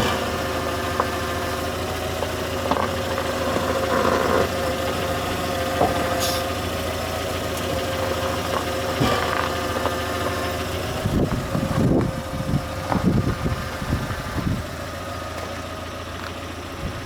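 GAZ Sobol van's engine idling steadily while the steering wheel is turned at a standstill, with scattered clicks and a run of heavier low knocks in the second half. The knock is the front-suspension knock under steering that the owner suspects comes from slight play in a wheel bearing.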